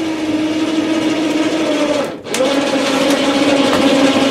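Small electric power tool motor running at a steady high speed, switched off briefly about two seconds in and started again, running a little lower in pitch the second time.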